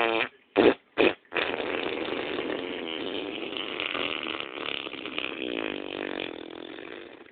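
Fart sounds: two short blasts close together, then one long, rattling fart lasting about six seconds that fades out near the end.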